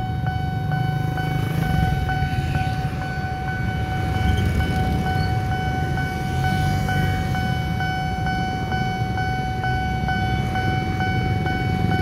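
Railroad level-crossing warning alarm sounding a steady electronic tone with a short regular beat about twice a second, signalling an approaching train. Under it runs the low rumble of waiting motorbike and car engines.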